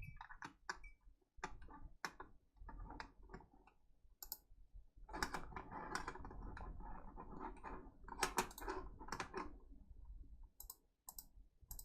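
Faint typing on a computer keyboard: irregular runs of key clicks, with a few quick clusters near the end.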